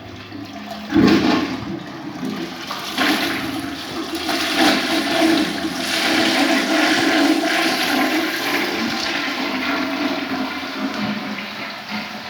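Water rushing through plumbing: it gushes in suddenly about a second in, stays strong for several seconds, then slowly eases off.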